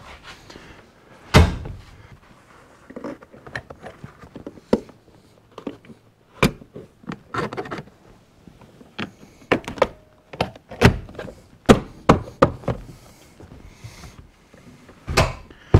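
Scattered thunks, knocks and clicks as a pickup's rear seat and plastic trim are pressed and knocked into place. One hard thunk comes about a second and a half in, and a run of knocks follows between about nine and thirteen seconds.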